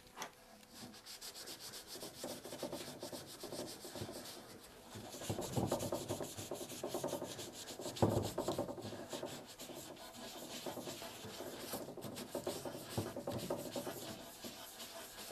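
A cloth rag damp with mineral spirits scrubbing a turned wooden chair leg in rapid back-and-forth strokes, louder for a few seconds in the middle.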